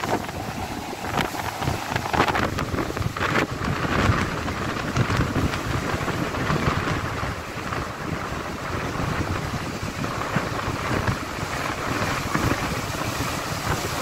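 Strong gusting wind buffeting the microphone, over rough surf churning and breaking against a stone sea wall.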